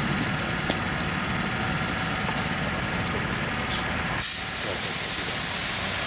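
A fire hose nozzle opens about four seconds in, and the water spray starts with a sudden loud, steady hiss as it is directed into the burning cell. Before that there is only a steady low rumble.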